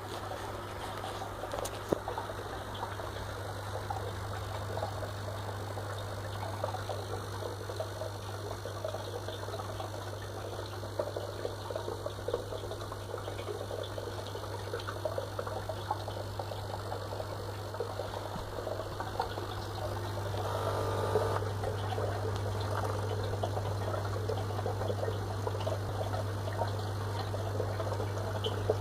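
Fluval FX6 canister aquarium filter running with a steady low electrical buzz over the splash and gurgle of water moving through it; the filter is otherwise working properly. A brief extra rattle of water comes about twenty seconds in.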